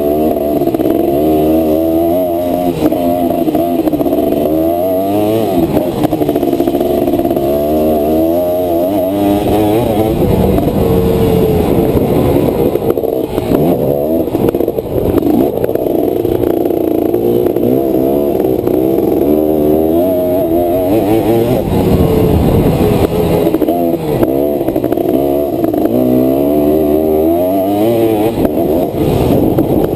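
Honda ATC250R three-wheeler's two-stroke single-cylinder engine heard on board, revving up and dropping back over and over as it is ridden hard through the turns and straights of a dirt track.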